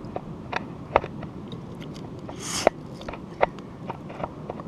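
Irregular sharp clicks and knocks of hard shell and stone being handled at a rock pool, with a short scraping rustle about two and a half seconds in.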